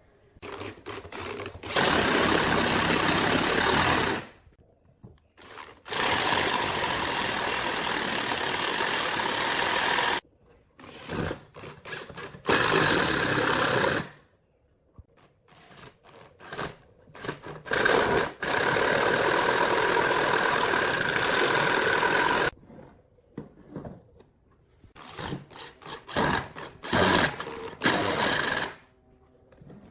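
An electric power tool working wood, run in bursts of two to four seconds each, four times, with handling knocks and clicks in the pauses between.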